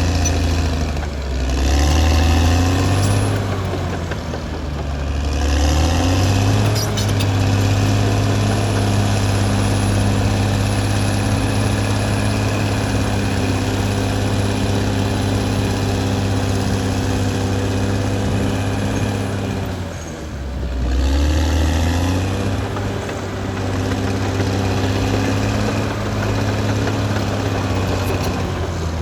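Caterpillar D6R XL bulldozer's diesel engine running, its engine note dipping and recovering a few times, about a second in, around five seconds in, and again around twenty seconds in.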